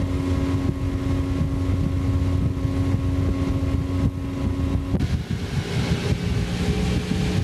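Motorboat engine running under way, a steady hum whose note changes about five seconds in, with wind buffeting the microphone.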